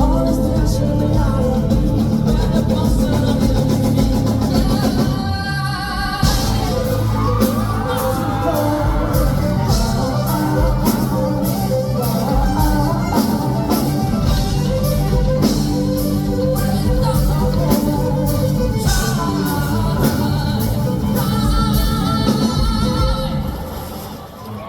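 Live band playing a rock song loudly, with a driving drum beat, bass, guitar and singing. The music drops away in the last second or so.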